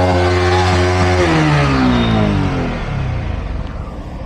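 Yamaha R15M's single-cylinder engine held at high revs during a rear-tyre burnout. The throttle closes about a second in and the revs drop away.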